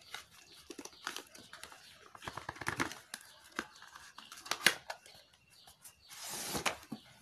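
Cardboard packaging being handled: a paperboard sleeve sliding off an inner box and its flaps being opened, with scattered light clicks and scrapes and a longer sliding rasp of card on card near the end.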